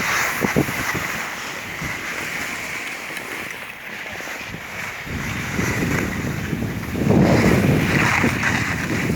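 Wind rushing over the microphone of a skier moving downhill, growing louder about halfway through with heavy buffeting near the end.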